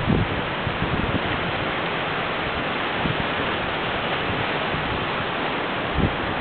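Steady rushing of fast-flowing river water after a typhoon, with wind buffeting the microphone at the start and again near the end.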